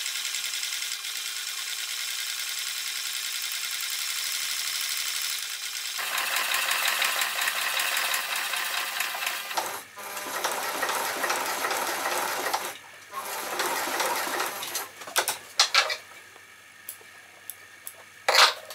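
Industrial leather sewing machine stitching a boot upper along its elastic gusset, running steadily with short pauses. Near the end the machine stops and a few sharp clicks follow.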